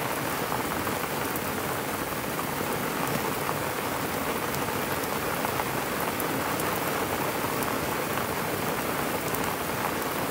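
Heavy tropical storm rain falling steadily onto the sea surface, an even hiss of countless raindrops hitting the water, with faint close drop ticks.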